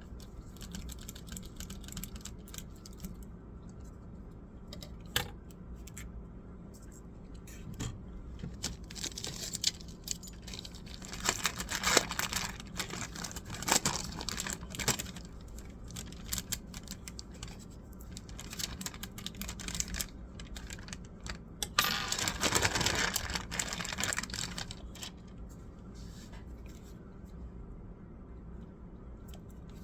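Irregular small clicks, taps and scrapes of plastic and metal laptop parts being handled during disassembly, with a denser rustling scrape about two-thirds of the way through, over a steady low hum.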